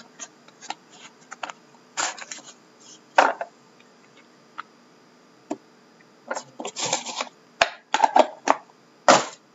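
Irregular scrapes, clicks and rustles of a small cardboard trading-card box being pried open by hand and the cards slid out of it, in short bursts that are loudest about three seconds in and near the end.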